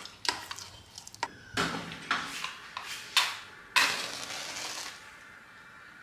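Metal spoon stirring thick ogi paste in a stainless steel bowl: irregular scrapes and sharp clinks against the bowl's side, the loudest about three seconds in and just before four. For the last second a faint steady hiss remains.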